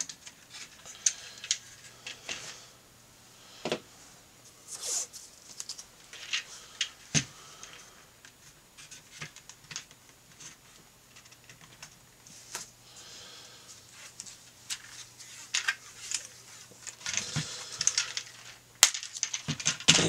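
Scattered plastic clicks, taps and brief rubbing of a car climate-control unit's circuit board and plastic faceplate housing being pressed together and handled during reassembly, with one sharp click near the end the loudest.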